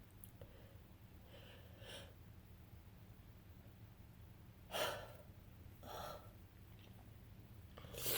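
A woman with a head cold taking gasping, breathy inhalations: a faint one about two seconds in, a sharp louder one near five seconds, and another about a second later. A stronger burst starts right at the end, typical of a cold sneeze building.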